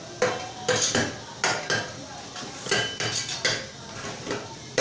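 Metal kitchen utensils and dishes clinking and knocking as they are moved about on a counter: a string of sharp clinks, several ringing briefly.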